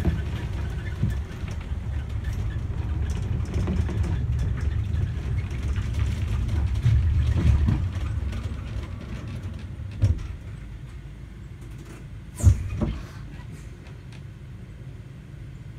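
Low, steady running rumble of an open-sided motorised tourist road train travelling along a paved road, quietening about halfway through. Two short sharp knocks sound later, the second the louder.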